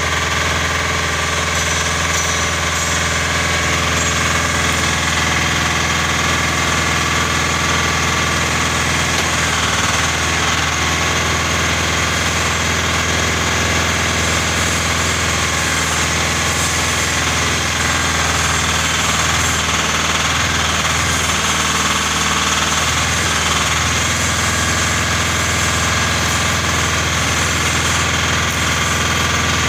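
Clay interlocking brick-making machine running: a loud, steady, continuous mechanical drone with a rattling edge that holds throughout.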